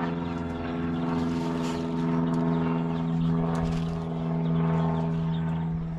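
A steady engine drone holding one unchanging pitch, slowly swelling and easing in loudness.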